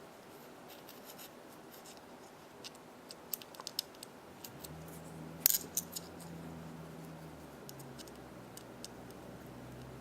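Small metal parts of a Burke Rock Star Pro folding knife clicking and tapping as they are handled and fitted back together. The light ticks are scattered, with a sharper cluster of clicks a little past the middle. A low steady hum comes in about halfway through.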